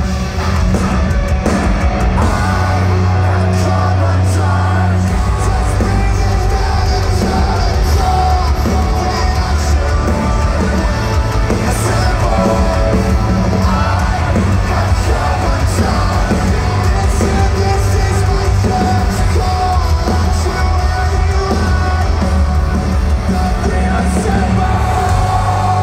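Live rock band playing at full volume through a concert PA, with heavy electric guitars, pounding bass and drums, and yelled or sung vocals. The low end gets heavier about five seconds in.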